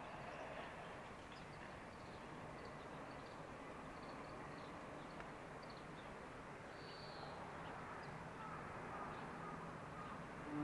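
Faint outdoor ambience at a railway station platform: a steady low hum of the surrounding town, with birds chirping now and then.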